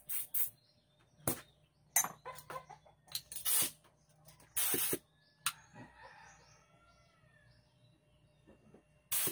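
Short bursts of compressed air hissing from a hand-held air nozzle fed by a homemade compressor built from a refrigerator compressor. Birds call faintly in the quieter stretch in the middle.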